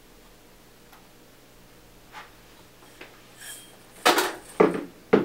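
A metal bowl being handled, giving three sharp clanks about half a second apart near the end, each ringing briefly, after a few faint taps.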